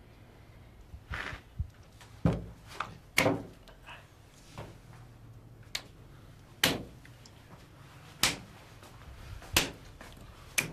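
Hands smacking down one onto another as several people stack their hands on a table: a run of sharp slaps, one every second or so.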